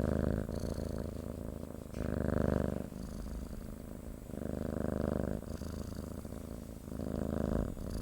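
Domestic cat purring steadily, swelling louder about every two and a half seconds with each breath.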